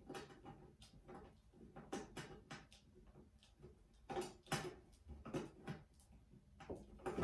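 Faint, irregular clicks and small metal scrapes of a screwdriver turning a tiny screw into a ceiling fan's metal decorative motor cover, with a few louder ticks about four seconds in.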